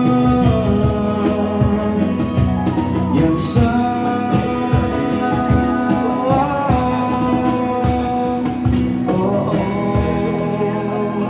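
Live pop band playing an instrumental passage after the chorus, with a steady drum beat under sustained guitar and keyboard lines.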